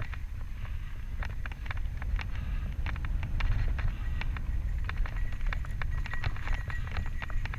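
Santa Cruz Tallboy LTC mountain bike rolling fast down a dirt singletrack: the tyres crunch over the trail and the bike clatters with frequent sharp irregular clicks and rattles, over a steady low rumble of wind on the microphone. A faint high tone comes in near the end.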